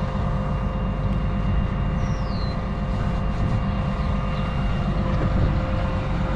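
Tractor engine running at a steady idle, a constant low drone with a faint steady whine over it, and a short falling high whistle about two seconds in.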